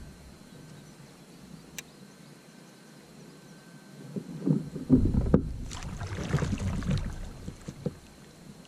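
Knocks and rubbing on a plastic fishing kayak's hull as the angler moves in his seat and works his rod, loudest for a few seconds from about halfway through, with a rushing hiss on top. Before that it is quiet apart from a single sharp click.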